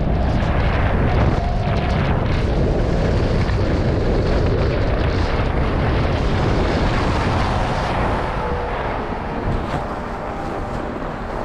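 Wind buffeting a helmet camera's microphone while skiing downhill, with skis sliding over groomed snow. It eases a little about eight seconds in as the skier slows.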